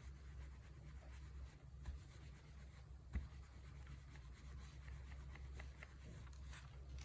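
Faint rubbing of a clothes iron being pressed and moved over fabric to fuse interfacing, over a steady low hum. There is one soft knock about three seconds in.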